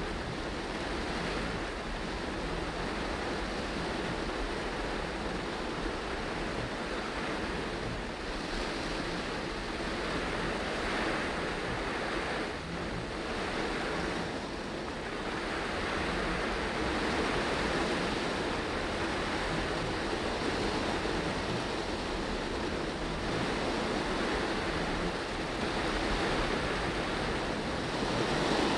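Heavy tropical rain on a moving car, heard from inside the cabin: a steady, dense hiss of rain on the roof and windscreen mixed with tyres running through water on the road, growing a little louder in the second half.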